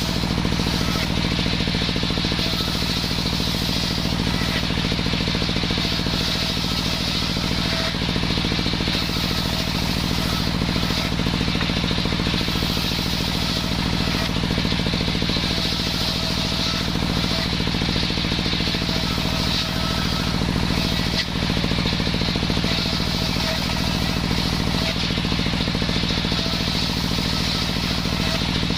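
Engine of a homemade circular saw machine running steadily at an even pitch and level.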